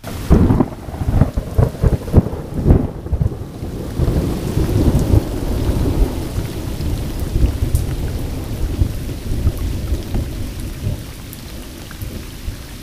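Thunderstorm: a loud, crackling rumble of thunder over the first few seconds, then heavy rain pouring steadily onto the water with a low rumble still running underneath.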